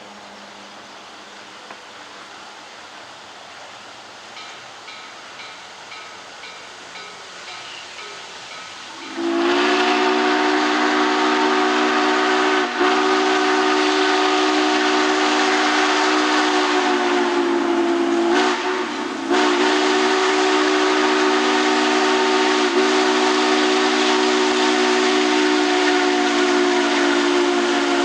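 Steam hissing steadily from a steam locomotive. About nine seconds in, the steam whistle of 2-6-6-2 Mallet C&O 1309 opens in one long blast of several notes at once. It is held for the rest of the time, with two brief dips.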